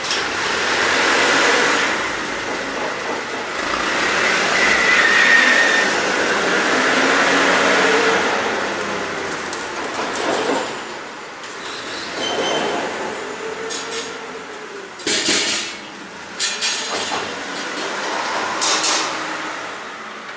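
Pallets being unloaded from a freight trailer: a pallet jack's wheels rumble and squeal as it rolls over the trailer floor, with several sharp clanks in the last few seconds.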